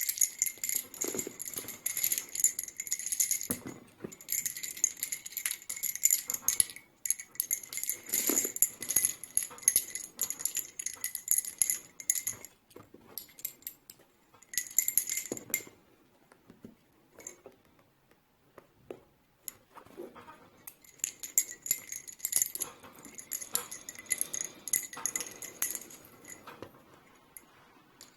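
Carmelo Badalona palo violeta (violet wood) lace bobbins clicking against each other as they are crossed and twisted in bobbin-lace work, in quick runs of bright ringing clicks. There is a short pause around the middle and a longer pause of a few seconds in the second half.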